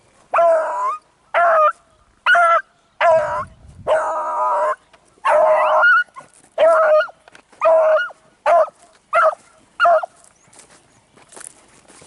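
Beagle barking and baying: about eleven pitched calls, roughly one a second, a few of them drawn out longer, stopping about ten seconds in.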